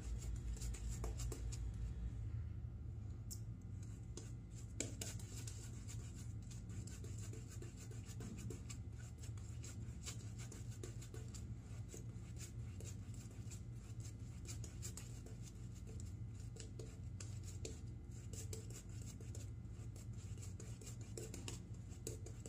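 Shaving brush working lather on a bearded face: a faint, continuous bristly scratching and rubbing with many small clicks, as the lather is built up and spread.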